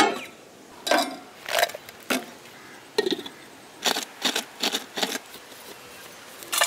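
Chocolate biscuits being broken up by hand for grinding: about ten sharp cracks and clatters, spaced irregularly.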